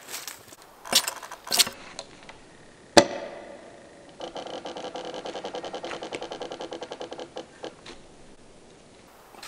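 A few snapping cracks of branches, then a hatchet striking a thin standing tree trunk with one sharp crack about three seconds in. This is followed by about three and a half seconds of rapid, even creaking of wood, roughly eight to nine ticks a second, around the trunk where the hatchet is lodged.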